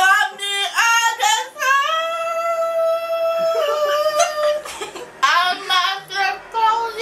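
A young woman singing a song unaccompanied, holding one long note for about two seconds in the middle.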